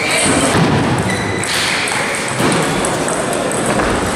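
Table tennis ball pinging off paddles and table during a rally, over the steady din of a large hall with other tables in play.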